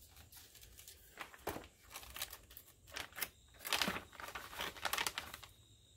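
Clear plastic bag crinkling as it is picked up and handled, in several short bursts.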